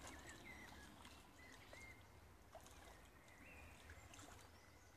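Near silence: faint outdoor ambience with a few faint, short, high chirps.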